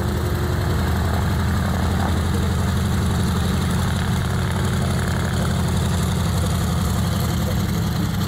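Curtiss C-46 Commando's twin Pratt & Whitney R-2800 radial engines running steadily at low power, a deep, even rumble.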